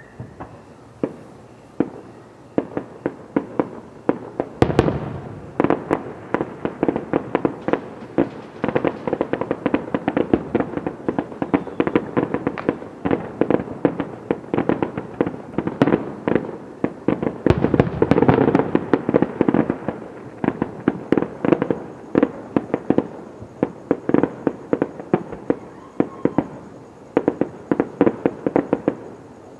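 Aerial fireworks going off: a few scattered bangs, then from about four seconds in a dense run of sharp bangs and cracks in quick succession, with a couple of deeper booms among them.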